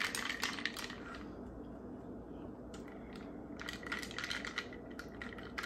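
Ice cubes clinking and rattling against a glass mason jar as iced coffee is stirred with a straw, in two bursts of quick clicks: one at the start and another about two-thirds of the way through.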